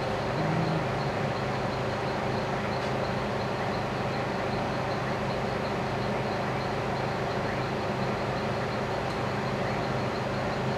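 Steady mechanical hum with hiss and a faint, evenly repeating high tick, unchanging throughout.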